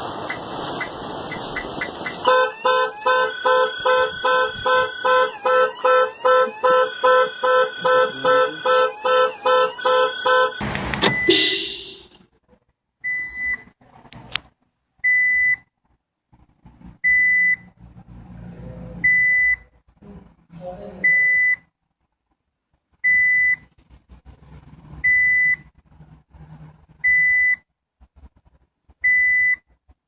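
Classic Jaguar XJ saloon's anti-theft alarm honking its horn in rapid pulses, about two and a half a second, for roughly eight seconds. Then, after a cut, a Mitsubishi's alarm gives a short single high beep about every two seconds.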